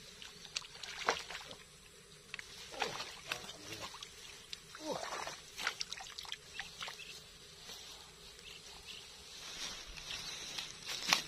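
A fish splashing and thrashing in a landing net at the water's surface, with scattered sharp splashes and water dripping from the lifted net, then rustling and one sharp knock near the end.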